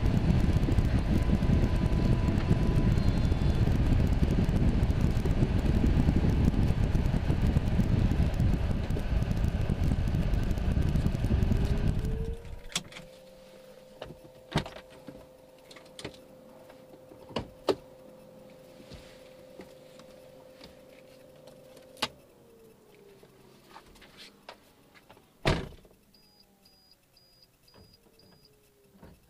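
The 1997 Audi's engine running as the car rolls slowly, then switched off about twelve seconds in. Afterwards scattered clicks, a faint steady whine, one loud door slam about twenty-five seconds in, and five short high beeps near the end.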